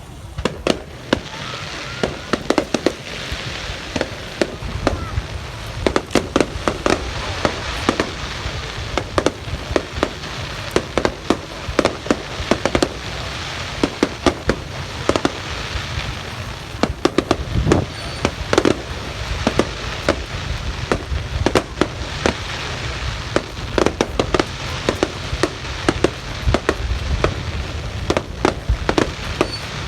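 Fireworks display going off in a continuous barrage: many sharp bangs a second over steady crackling and a low rumble.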